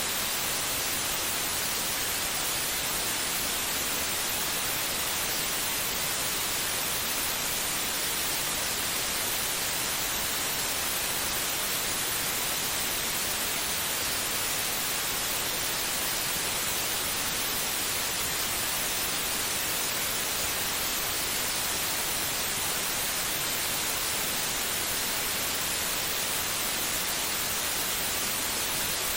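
Steady white noise: an even, unchanging hiss with no beat or pulse.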